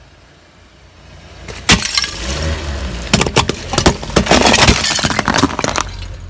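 A car tyre rolls over and crushes brittle objects. There is one sharp crack, then a few seconds of dense crackling and crunching over the low rumble of the car.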